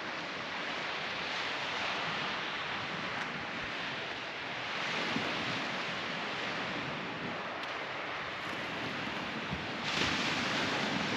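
Steady wash of gentle surf on the beach with wind noise on the microphone, swelling to a louder rush of noise near the end.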